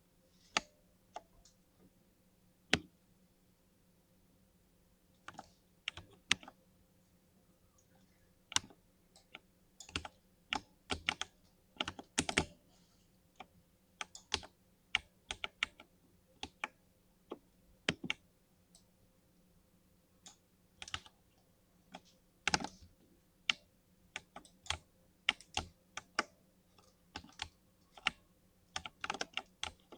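Keystrokes on a mechanical keyboard with Cherry MX Silver linear switches that have been lubed: irregular typing, single presses and quick runs of keys with short pauses between.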